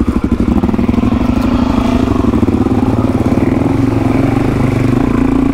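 Suzuki DR-Z400 single-cylinder dirt bike engine running at low revs on a dirt track. It starts with a choppy, pulsing beat for about the first second, then settles into a steady note.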